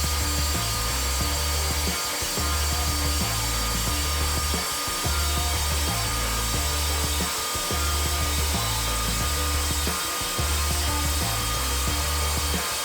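Sliding mitre saw with a diamond blade running steadily and cutting through masonry, over background music with a repeating bass line.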